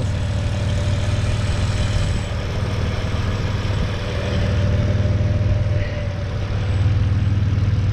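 Chevrolet Epica's 2.0-litre X20D1 DOHC 24-valve straight-six petrol engine idling steadily.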